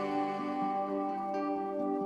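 Background music: slow, sustained instrumental notes in a new-age style.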